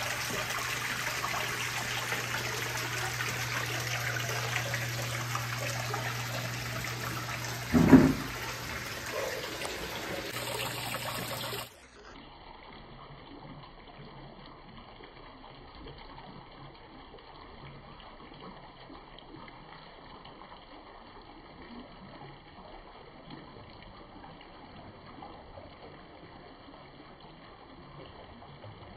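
Water trickling and splashing down the cement-coated rockwork of a homemade waterfall fountain, with a steady low hum under it and one loud thump about eight seconds in. Shortly before halfway it drops suddenly to a quieter, duller trickle.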